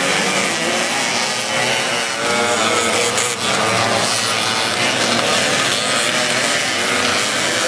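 A pack of classic motocross motorcycles racing past, their engines revving up and down in a dense overlapping buzz.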